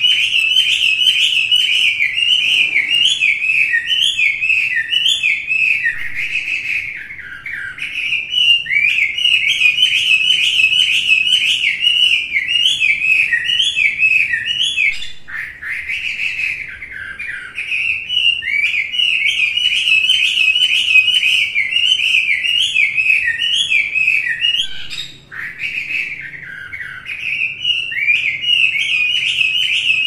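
Chinese hwamei singing hard in full song: a long, varied stream of rapid whistled notes and trills, broken by three brief pauses between phrases.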